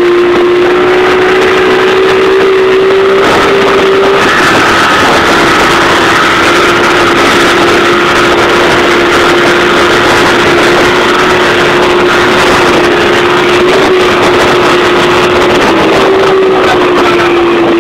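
Motorboat engine running at speed, a steady hum that shifts slightly in pitch a few times, over loud rushing wind and water noise.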